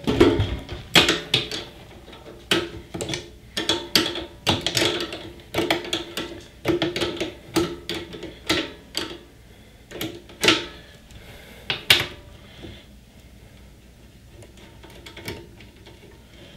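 Irregular metal clicks and clinks of a wrench working the 14 mm nut onto a cable lug on the output terminal inside an inverter welder. The clicking stops about twelve seconds in, leaving only faint handling sounds.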